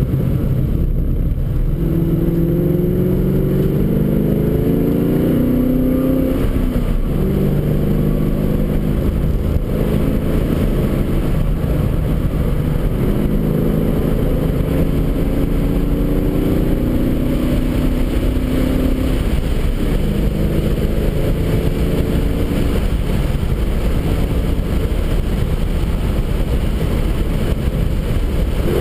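Car engine heard from inside the cabin while driven on a race track, pulling hard with its pitch climbing in long runs about three times, each ending in a sudden drop as the driver shifts or lifts for a corner, over a steady rumble of road and wind noise.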